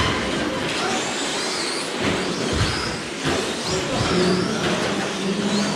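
Several 1/10-scale electric short-course RC trucks racing on a carpet track: their motors whine high, rising and falling with the throttle, over a steady noise from the tyres and drivetrains. There are a few sharp knocks about two to three seconds in.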